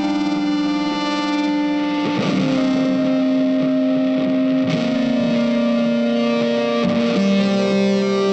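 Music led by a distorted electric guitar holding long sustained notes, moving to a new pitch every two to three seconds.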